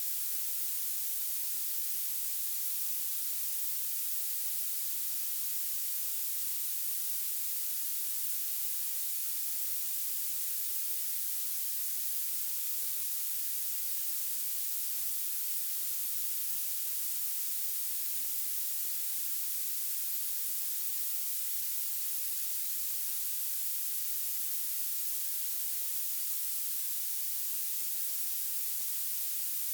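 Violet noise: a steady, unbroken hiss whose energy climbs toward the very highest pitches, with almost nothing in the bass.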